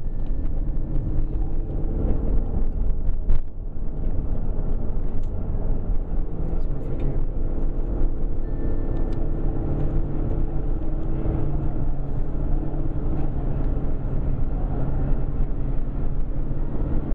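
Steady low rumble of road and engine noise inside a moving car's cabin, with a brief dip about three and a half seconds in.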